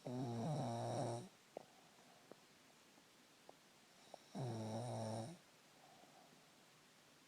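A sleeper snoring: two snores about four seconds apart, each lasting about a second with a low buzzing tone, and quiet between them.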